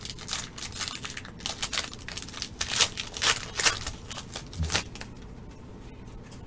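Foil trading-card pack being torn open by hand, its wrapper crinkling in a quick run of sharp crackles that are loudest around three seconds in and stop about five seconds in.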